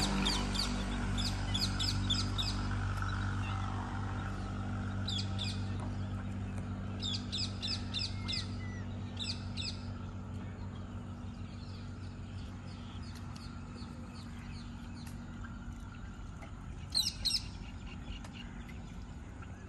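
Birds calling in short runs of quick, high chirps, several times over, with the loudest run near the end. A steady low hum sits underneath.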